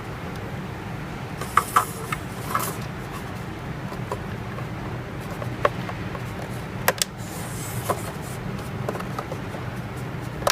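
Scattered sharp clicks and light knocks of a plastic enclosure catch being pressed and worked onto the box at its dowel-pin hinge, over a steady low hum.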